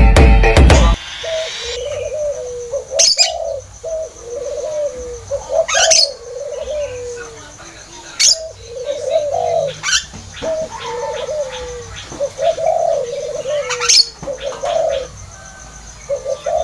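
Loud music stops about a second in. A spotted dove (tekukur) then coos repeatedly, its low phrases following one another every second or two, in the agitated call used to lure doves. Sharp clicks sound a handful of times over the cooing.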